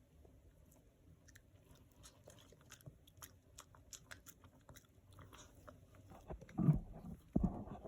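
Dogs licking and eating peanut butter: a run of quick, wet mouth clicks and smacks, then two louder, deeper bursts of chewing near the end.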